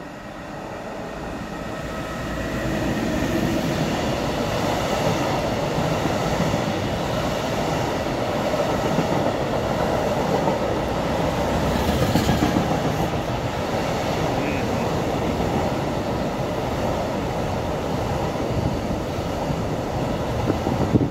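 Intermodal freight train of container wagons rolling past close below, its wheels running over the rails. The noise builds over the first two or three seconds as the train arrives, then holds steady as the wagons go by.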